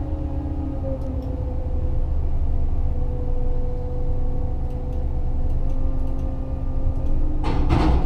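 Liebherr LHM550 mobile harbour crane's machinery running steadily, heard inside the operator's cab as a low drone with a steady hum. A short clatter comes near the end.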